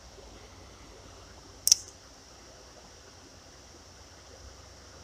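Faint steady rush of creek water, with a single sharp click a little under two seconds in.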